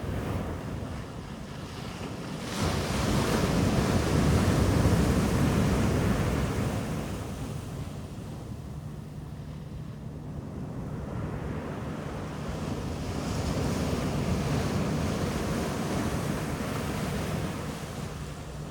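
Sea waves breaking on a beach and washing up the shore. One wave breaks loudly about three seconds in and slowly fades, and a smaller one follows later. Wind is buffeting the microphone.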